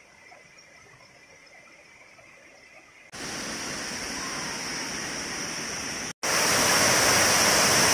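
Rushing water of a waterfall, an even roar that starts abruptly about three seconds in after a faint quiet stretch. It cuts out for an instant a little after six seconds and comes back louder.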